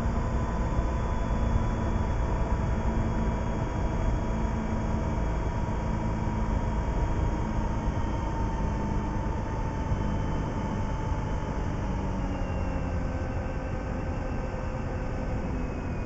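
Motorcycle engine running at a steady cruising pace, heard from on board the bike with rushing wind and road noise; the engine note eases down a little in the second half as the bike slows.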